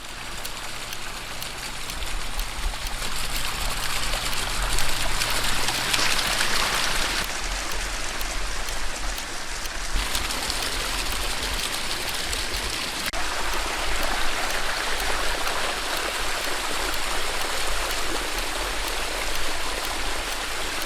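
Water splashing and running steadily down a pondless waterfall.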